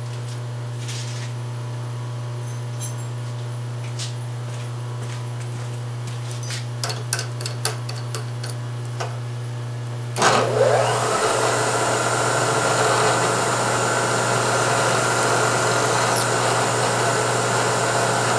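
A steady low hum with a few light metal clicks as a drill is fitted in the milling machine's drill chuck. About ten seconds in, the spindle motor starts with a rising whine, then runs steadily while a #21 tap drill is fed into the aluminium plate.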